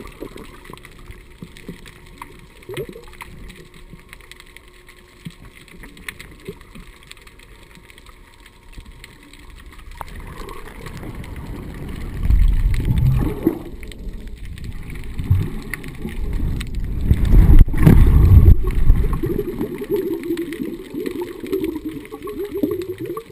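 Muffled water noise picked up by an underwater camera. For about ten seconds there is only a low hiss with scattered faint clicks. Then come louder, low rushing and sloshing sounds of water moving around the camera, about twelve seconds in and again, loudest, between about sixteen and nineteen seconds.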